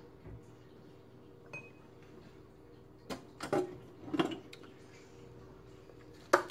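Scattered light clicks and taps of a fork against a bowl, about half a dozen, with the sharpest pair near the end, over a faint steady hum.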